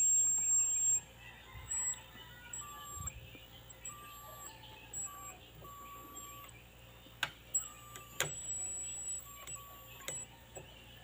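High-pitched whistle from a CRT TV's flyback transformer, which has worked loose on its mounting. The whistle is strongest in the first second, then cuts in and out in short spells, with a couple of sharp clicks.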